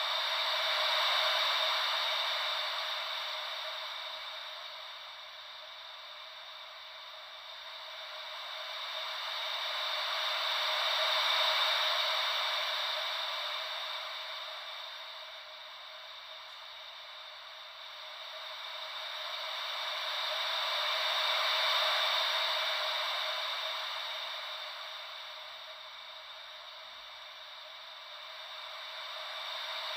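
White-noise hiss shaped to sound like gentle ocean waves, in three slow swells about ten seconds apart, each rising and fading smoothly, with no deep rumble underneath.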